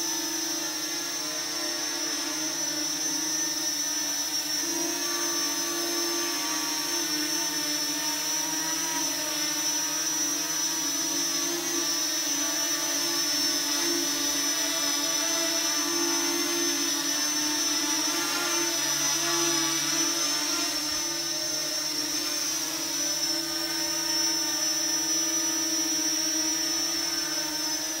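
Parrot Anafi Thermal quadcopter flying low, its four propellers giving a steady buzz with a high whine on top, the pitch wavering slightly as it manoeuvres.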